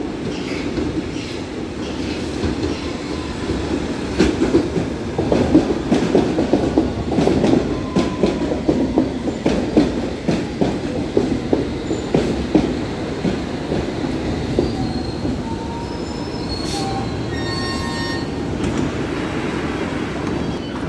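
London Underground S7 Stock train pulling into a platform: a rumble that swells with many clicks of wheels over rail joints as the cars pass. It then eases as the train brakes to a stop, with thin squealing tones near the end.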